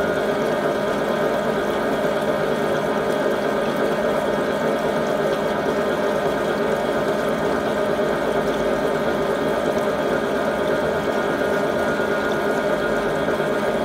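Bimetallic fin tube rolling machine running steadily, its roller heads rolling fins onto a turning tube, a constant hum of several tones with coolant running over the rolls.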